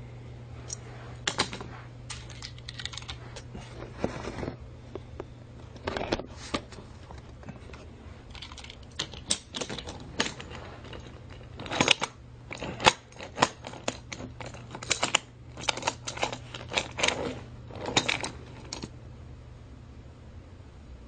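Irregular sharp clicks and clacks of small hard objects over a steady low hum, coming thicker and louder about twelve seconds in.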